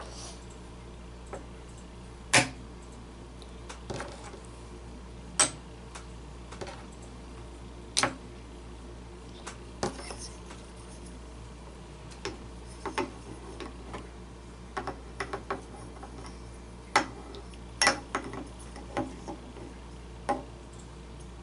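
Tegu magnetic wooden blocks clacking against each other and snapping together as they are handled and stacked: sharp wooden clicks every few seconds, sometimes several in quick succession, over a steady low hum.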